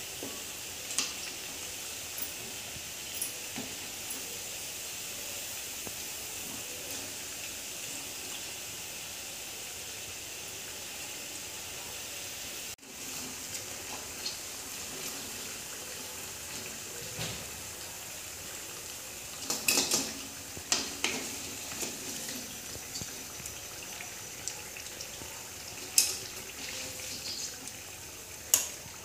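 Chakli deep-frying in hot oil: a steady sizzle, with a wooden spatula knocking against the pan now and then, several knocks together about two-thirds of the way through.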